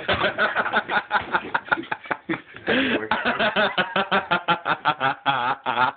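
Washing machine on its spin cycle jolting rapidly and evenly, about eight times a second, with a man riding on top laughing and his voice shaken by the jolts; his voice wavers near the end.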